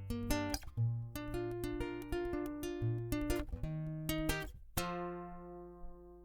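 Instrumental music on a plucked string instrument, guitar-like: quick picked notes over a moving bass line, then a chord struck about five seconds in and left to ring and fade.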